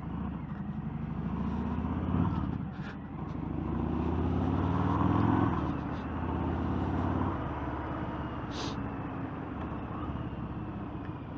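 Motorcycle engine accelerating, its pitch rising twice as it pulls up through the gears, heard from a helmet-mounted camera with wind noise on the microphone.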